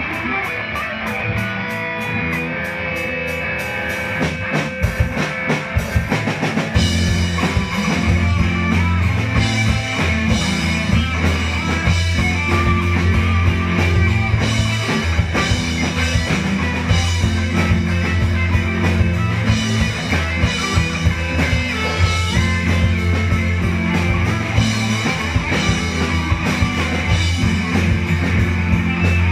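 Live rock band with electric guitars and a drum kit playing; a lighter guitar passage with steady cymbal ticks gives way about seven seconds in to the full band with heavy bass and drums.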